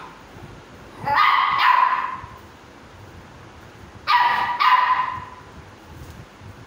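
Two-month-old pit bull puppy barking in high-pitched puppy barks: two barks in quick succession about a second in, and another pair about four seconds in.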